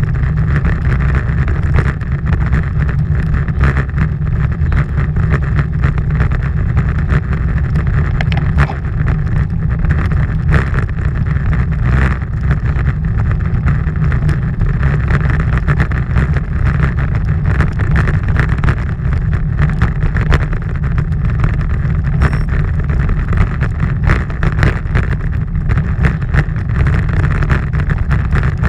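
Wind buffeting the microphone of a camera moving along a road: a steady low rumble with frequent small crackles.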